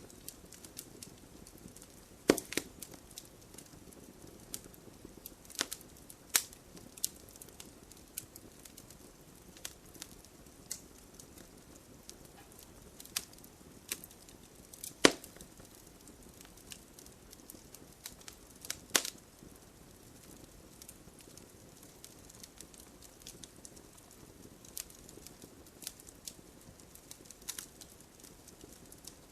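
Wood burning in a campfire, crackling steadily with irregular small pops and a few sharper snaps, the loudest about two seconds in, about halfway through and about two-thirds through.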